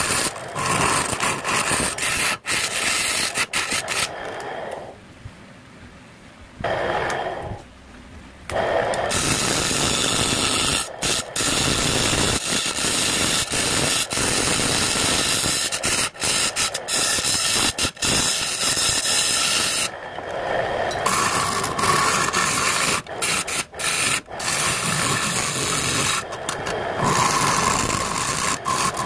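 A hand-held turning tool scraping and cutting the face of a spinning jackfruit-wood blank on a lathe: a steady rasping hiss with many short breaks where the tool lifts. It goes much quieter from about four to nine seconds in.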